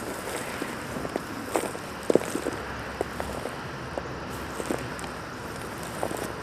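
Hands digging through loose potting soil in a plastic bucket: irregular soft scrapes, rustles and small knocks over a steady background hiss.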